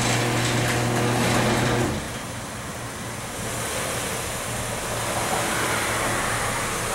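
Garage door opener motor humming steadily, stopping abruptly about two seconds in; then a Nissan sedan's engine running low as the car creeps slowly into the garage.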